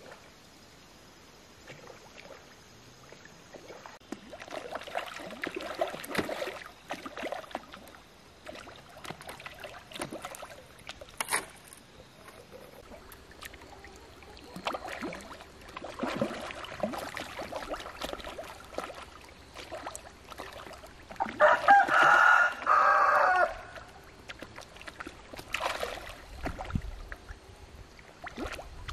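A rooster crows once, loudly, for about two seconds around three-quarters of the way in, among scattered chicken clucks and small splashes from the pond.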